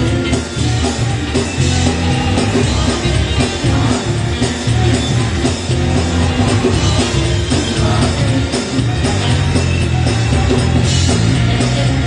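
Church choir singing loud gospel music over a live band: keyboard, heavy bass and drums keeping a steady beat.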